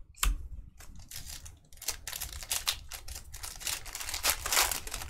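Trading cards being handled and flipped through on a table: a run of quick clicks and rustling slides of card stock, busier and louder in the second half.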